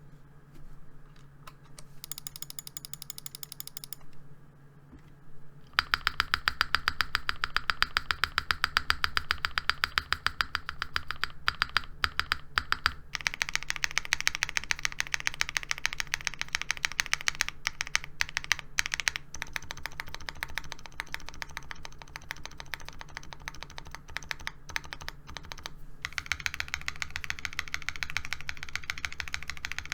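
Qwertykeys QK60 aluminium-case keyboard with hand-lubed KTT Rose linear switches and PBT keycaps being typed on: from about six seconds in, a dense, continuous stream of rapid keystrokes. A short buzzing tone comes before it, in the first few seconds.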